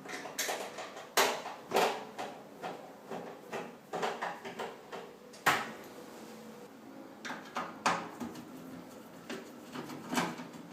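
Irregular clicks, knocks and scrapes of hard parts being handled while working on a microwave oven, with a few sharper knocks among them.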